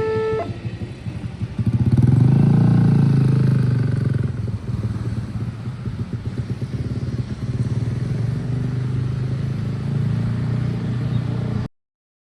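A railway level crossing's two-tone warning alarm stops just after the start, and motor traffic takes over, mostly motorcycle engines, loudest between about two and four seconds in, then a steadier rumble until the sound cuts off suddenly near the end.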